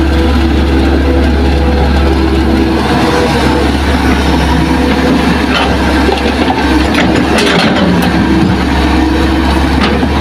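Hitachi hydraulic excavator's diesel engine running steadily as the machine swings and dumps a bucket of soil into a dump truck. A few knocks come about six to eight seconds in as the soil drops into the truck bed.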